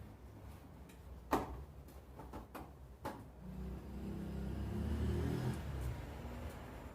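A few sharp clicks and knocks of handling, about a second and a half to three seconds in, then a low muffled hum that swells in the second half.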